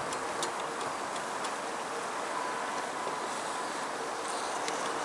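Honeybees buzzing steadily around an open hive during an inspection, with a few faint light clicks.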